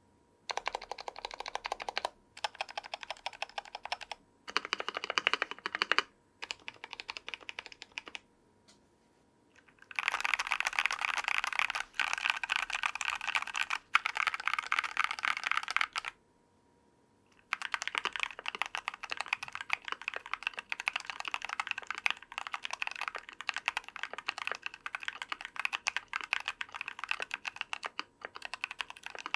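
Typing on a mechanical keyboard with factory-lubed TECSEE Ice Grape linear switches (63.5 g) under PBT keycaps, in a Tofu60 case with a brass plate and foam dampening. Rapid keystrokes come in runs: four short bursts, a pause of about two seconds, a longer run from about ten seconds in, another short pause, then steady typing from about seventeen seconds on.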